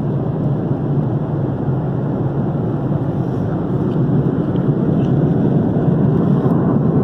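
Steady jet-engine and airflow noise inside a passenger airliner's cabin, growing slightly louder about halfway through.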